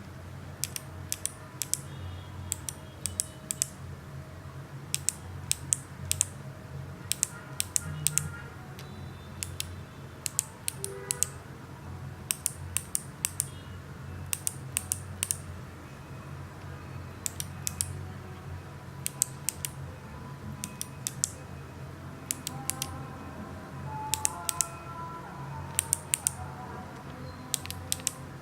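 Kailh BOX clicky switches (White, Jade, Pale Blue and Navy) pressed bare, without keycaps, giving sharp, crisp clicks in short bursts of a few presses at a time throughout.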